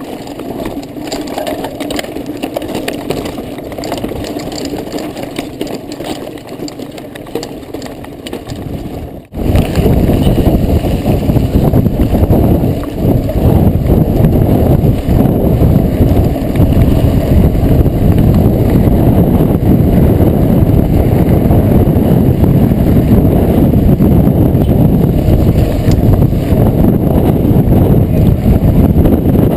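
Wind buffeting a mountain bike's handlebar-mounted camera microphone, mixed with the bike's tyres and frame rattling over a dirt and gravel track. It turns abruptly much louder about nine seconds in and stays loud.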